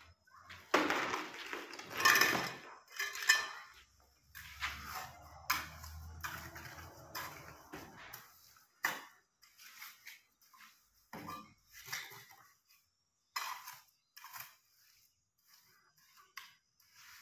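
Mason's trowel scraping and clinking on cement mortar and ceramic tile, in irregular strokes with sharp clicks, busiest in the first few seconds.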